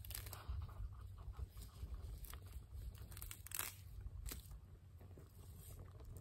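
Green pine needles being snapped and torn by hand and fed into a small wood fire: scattered sharp crackles and snaps, the loudest about three and a half seconds in, over a steady low rumble.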